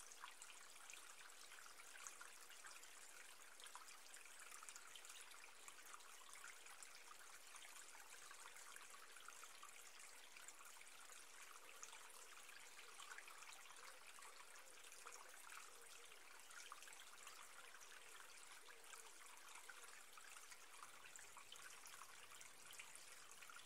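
Near silence: a faint, steady hiss with a light crackly texture.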